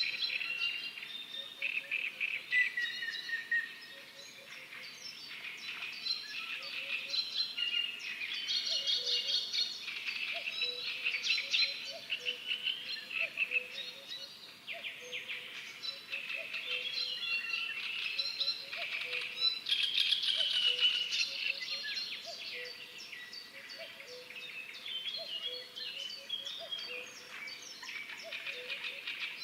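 Many birds singing at once in a dense chorus of chirps and trills. A lower, softer call repeats steadily underneath.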